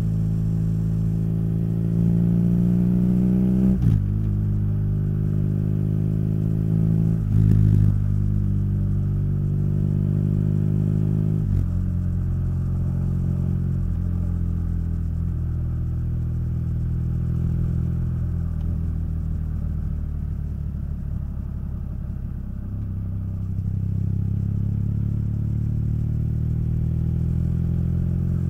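BMW R nineT's boxer twin through its Akrapovic exhaust, accelerating up through the gears with upshifts about 4, 7.5 and 11.5 seconds in. It then runs at a steady road speed, eases off briefly past the middle, and pulls again near the end.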